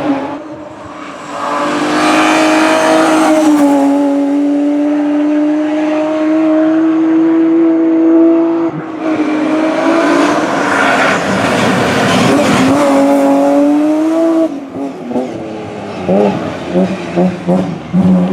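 Rally car engines held at high revs at full throttle, one long steady pull and then a second, over a rushing hiss that carries some tyre squeal. Near the end an engine comes in short, broken bursts, revving up and down.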